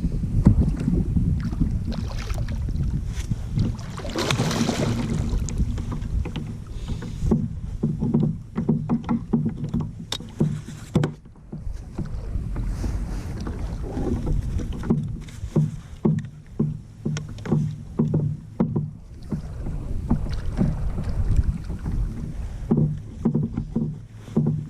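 Knocking and handling noise in a kayak while a big blue catfish is fought at the boat, over wind on the microphone; in the second half a run of regular low thumps, about one to two a second.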